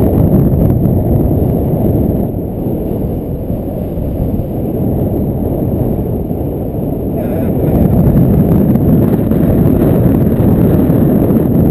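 Wind buffeting the microphone of a camera carried on a paraglider in flight, a steady low rumble of rushing air. It eases a couple of seconds in and swells again after about seven seconds.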